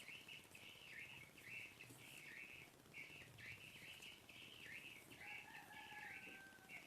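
Faint high-pitched chirping calls from a small animal, repeated almost without a break, with a thin steady whistling tone joining in for the last couple of seconds.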